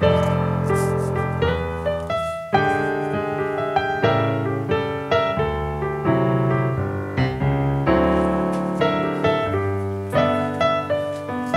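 Background piano music: single notes and chords struck one after another and left to fade.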